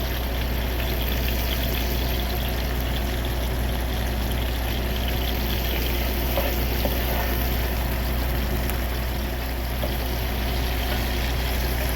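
Seasoning and vegetables frying in a skillet, a steady sizzling hiss with a few small clicks, over a constant low hum.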